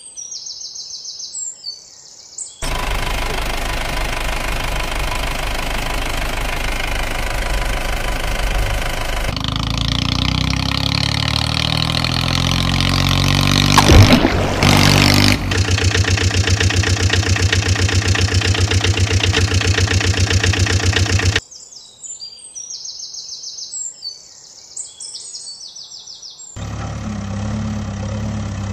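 Birds chirping, alternating with dubbed-in vehicle engine sound effects for toy vehicles that cut in and out abruptly: an engine running steadily, a second engine with one sudden loud sound about halfway, then a fast, even idling chug, before the chirping returns and an engine starts again near the end.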